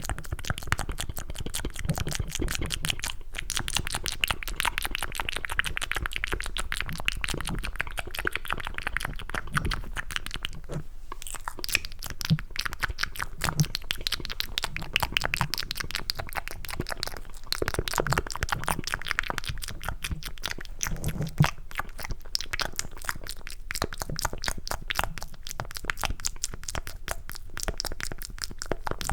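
ASMR mouth sounds made close to the microphone with cupped hands: a dense, continuous stream of wet clicks, smacks and crackles made to sound like chewing mac and cheese.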